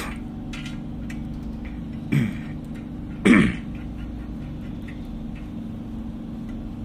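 A person clearing their throat twice, about a second apart, over a steady low hum. There are faint clicks as a bolt and nut are fitted by hand into a steel angle-iron frame.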